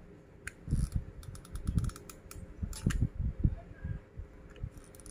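Plastic straws and the straw model being handled while a railing is glued in place: irregular clicks, taps and soft knocks with a light creak.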